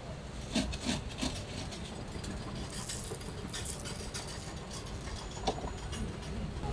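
Steady low hum with a few light clicks and patters, as crushed nut flakes are sprinkled by hand onto a crepe on the griddle.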